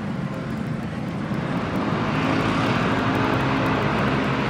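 Steady exhibition-hall noise: a droning hum under a general crowd hubbub, growing a little louder about a second and a half in.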